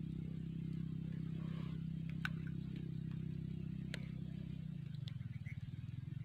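Steady low engine hum holding one pitch, growing slightly more pulsing about five seconds in, with a couple of faint clicks.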